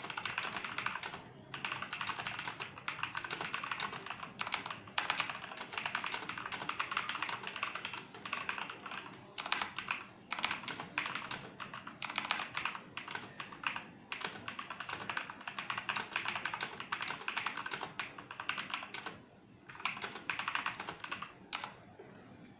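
Fast typing on an Azio MGK L80 RGB mechanical keyboard: a dense run of key clicks in bursts, with short pauses between them, stopping near the end.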